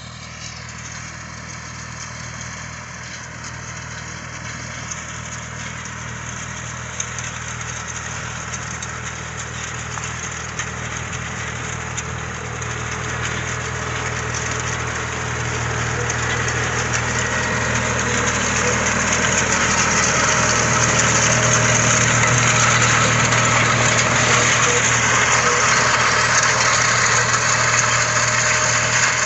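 Tractor diesel engine running steadily while pulling an inter-row cultivator, growing louder in the second half as the tractor draws near.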